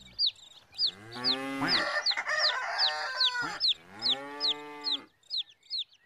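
Chicks peeping, a short falling cheep two or three times a second throughout, while a rooster crows loudly over them from about a second in, the crow ending about five seconds in.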